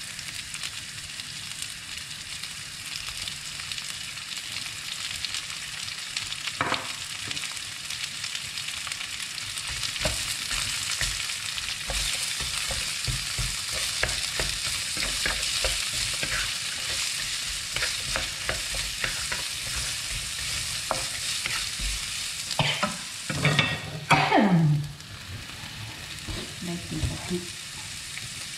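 Food sizzling in hot oil in a frying pan while a utensil stirs and scrapes against the pan in quick irregular strokes. Near the end comes a louder scrape whose pitch falls.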